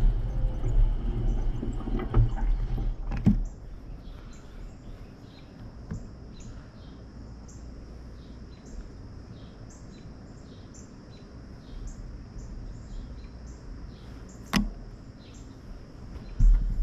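Low wind and road rumble on a bicycle-mounted GoPro that stops after about three seconds, leaving quiet ambience with a steady high chirping about twice a second. There is one sharp click about two seconds before the end, and the rumble starts again near the end.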